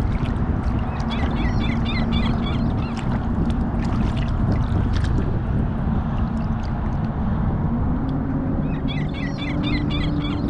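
Water sloshing and splashing against a kayak hull around a black drum held by its tail at the surface, with scattered small splashes and clicks. Under it runs a steady low hum that rises slightly near the end, and two short runs of high chirps come about a second in and near the end.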